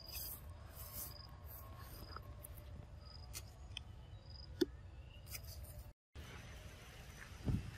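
Faint forest ambience: short high chirps repeating over a low rumble, with a few scattered sharp clicks and rustles. The sound drops out briefly about six seconds in, and a couple of low thumps follow near the end.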